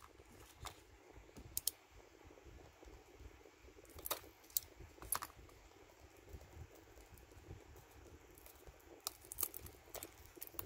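Fingernails picking at clear plastic shrink-wrap on a small cardboard box, working the film loose: faint, scattered clicks and crinkles at irregular intervals.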